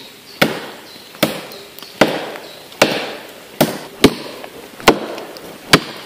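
A homemade machete, made from a circular saw blade, chopping into a fallen tree trunk: eight sharp strikes, one a little under every second.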